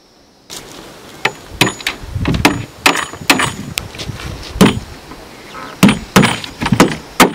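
Chopping with a knife: a dozen or so sharp, irregularly spaced strikes, starting about half a second in, with light handling noise between them.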